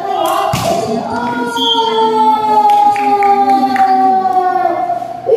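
Singing: a long held note that slowly falls in pitch over several seconds, with a sharp smack about half a second in.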